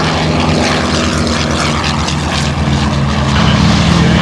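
Piston-engine propeller airplane running close by, a steady throbbing engine note that gets louder about three and a half seconds in.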